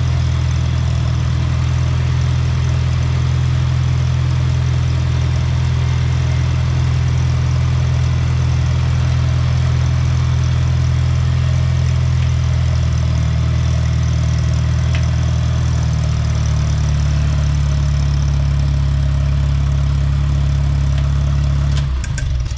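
International Cub Lo-Boy's four-cylinder engine idling steadily and evenly on new spark plugs and spark plug wires.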